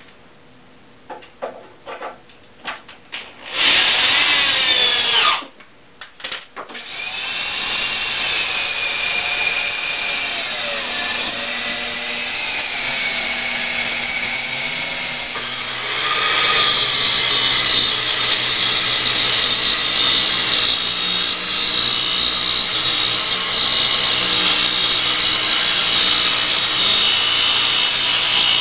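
A cordless drill runs briefly, about four seconds in, with a few handling clicks around it. Then, from about seven seconds in, a corded circular saw runs continuously, cutting lengthwise through a sheet of plywood sheathing, its motor whine wavering under load.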